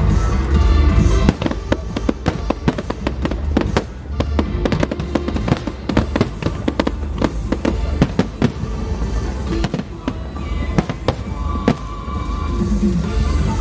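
Aerial fireworks: a dense, irregular run of sharp bangs and crackles from comets and bursting shells over a steady low rumble. Music plays underneath.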